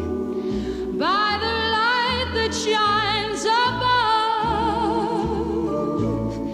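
Background music: a song with a singer holding long notes with vibrato over a steady repeating bass line.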